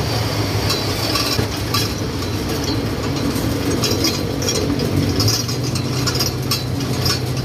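Songthaew pickup-truck taxi running steadily, heard from its open rear passenger bed, with irregular rattling and clinking from its metal frame and grab rails.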